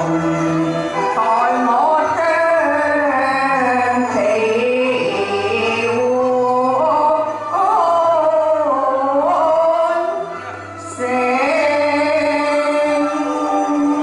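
A woman singing a Cantonese opera (yueju) song through a microphone and loudspeakers, with accompaniment; her notes are held long and slide between pitches, and the singing pauses briefly about ten seconds in.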